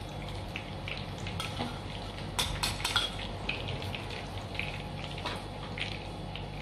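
A metal spoon clinking and scraping against a ceramic bowl and plates as a thick avocado and cream-cheese sauce is spooned out, in short irregular clicks over a steady low hum.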